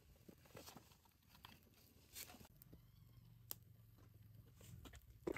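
Faint, scattered crackling and clicking of a wood fire burning among glowing embers, with one sharper pop about three and a half seconds in.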